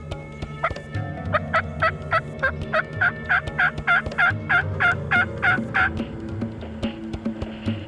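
Aggressive turkey calling: a fast run of about twenty hen yelps, roughly four a second, meant to pull in a strutting gobbler. It stops about six seconds in.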